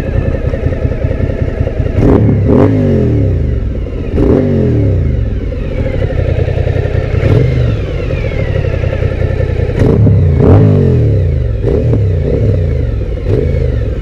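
Suzuki V-Strom 1000 XT's 1037 cc V-twin, fitted with an Akrapovic slip-on exhaust, idling and blipped about nine times, each rev rising sharply and falling back to idle.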